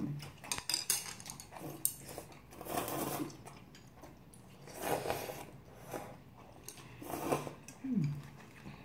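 Noodles slurped in several separate hissing sucks, about three seconds in, five seconds in and again near the end, with chewing and light clicks of chopsticks and bowls between them.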